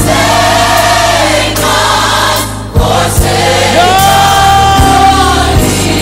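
Gospel music: a choir singing long held notes with vibrato over a steady bass line, with a few sharp drum hits.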